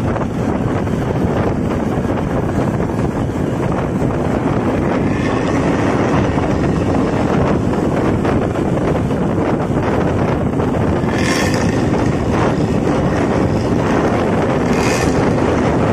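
Road vehicle driving at speed: a steady engine-and-road rumble with heavy wind buffeting the microphone. A few brief higher-pitched sounds rise over it, the clearest about two-thirds of the way in and near the end.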